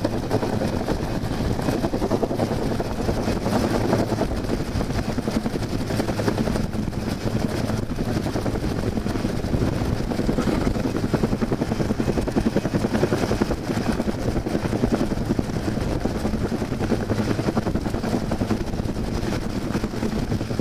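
Helicopter hovering low overhead: a steady, rapid beat of the rotor blades over a constant engine hum, holding level without pause.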